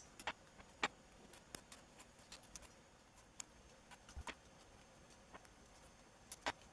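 Buckling springs of an IBM Model F keyboard being handled and set into the key barrels of the plate: faint, scattered light clicks and ticks of small metal and plastic parts, with a couple of louder clicks near the end.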